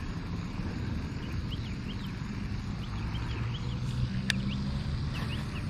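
Steady low rumble with a faint hum, outdoors on open water, with faint short chirps in small groups and a single sharp click about four seconds in.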